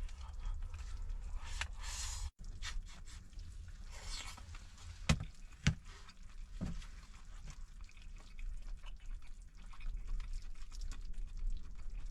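Steady low rumble of strong wind buffeting a small camper van, with small liquid sounds and a few short knocks as a drink is sipped, the knocks clustering around the middle.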